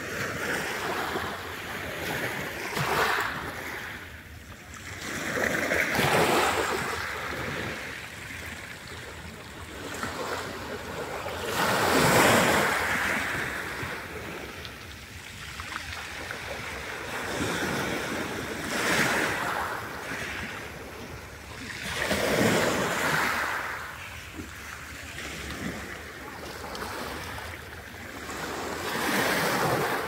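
Small Black Sea waves breaking and washing over a pebble shore, the noise swelling with each wave every few seconds and falling back between them.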